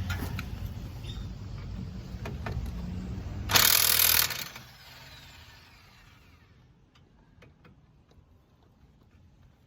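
A low rumble, then one short, loud burst of a power tool lasting about a second as a brake caliper bolt is worked loose. Faint clicks of tools handled on metal follow.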